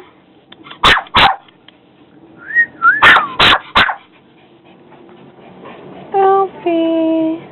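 A dog barking: five short, sharp barks in two bunches, two about a second in and three around the third second. A rising-and-falling whistled note sounds just before and under the second bunch.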